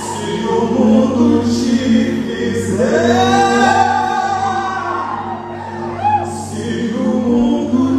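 Live gospel song with two male singers trading sung lines over a backing band through the PA. One voice holds a long note about three seconds in.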